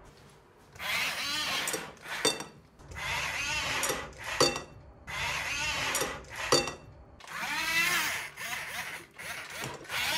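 Small electric motors and plastic gears of a radio-controlled toy wheel loader whining as it drives. The whine comes in short stop-start bursts of a second or two, rising and falling in pitch, with a few sharp clicks between bursts.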